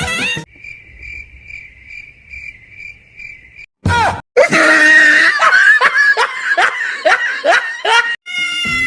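A steady, even chirping like crickets for about three seconds, then after a brief loud burst a run of loud, rapid cries, each falling in pitch, about three a second.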